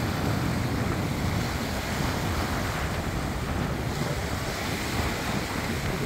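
Small waves washing up and running back over a sandy beach, with wind buffeting the microphone in a steady low rumble.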